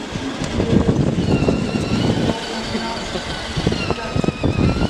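Child's battery-powered ride-on toy car rolling over brick paving, its hard plastic wheels rumbling and knocking over the joints between the bricks.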